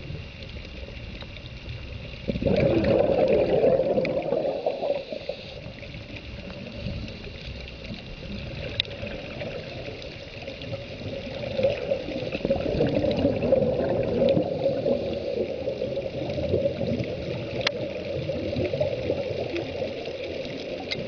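Underwater scuba bubbles rushing and gurgling from a diver's regulator exhaust. A loud burst comes about two seconds in, then more bubbling bursts run through the second half over a steady underwater hiss, with a few faint ticks.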